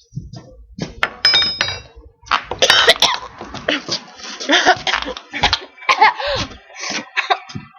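Girls coughing and laughing in short, irregular fits, with a high squeal about a second in. The coughing is from dry cinnamon catching in the throat on the cinnamon challenge.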